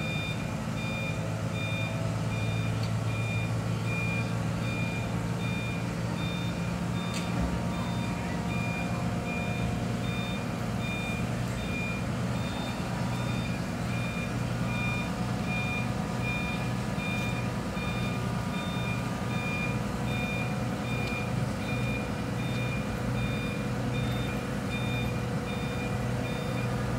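Forklift's reversing alarm beeping at a steady, even rate over the low, steady running of its engine, the alarm signalling that it is backing up.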